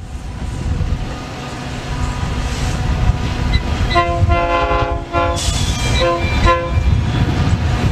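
Diesel passenger locomotive rumbling past, its multi-tone air horn sounding a few blasts, one of them long, from about halfway through, then the rumble running on.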